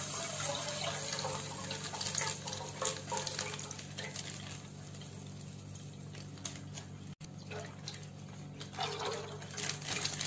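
Milk pouring from a plastic milk packet into a pot of milk, a steady splashing trickle with a few short crinkles of the packet.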